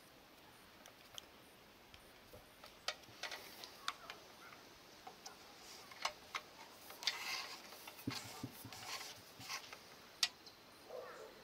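Faint, irregular clicks and short rustles of hand tools working on electrical cable, with the sharpest click near the end.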